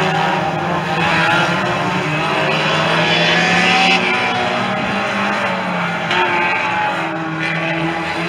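Hot saloon stock cars racing, their engines running hard at high revs, the pitch rising and falling as they accelerate and pass. Loudest about four seconds in.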